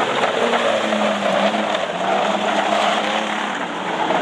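Street stock race cars' engines running hard together as the sedans race around a dirt oval, a steady, loud mix of engine notes that wavers slightly in pitch.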